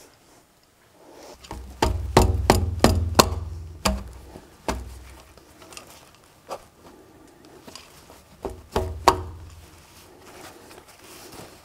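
A run of sharp knocks and clunks with a low rumble under them, starting about a second and a half in and coming again briefly near nine seconds, as metal exhaust parts are handled and knocked against the underside of a pickup truck.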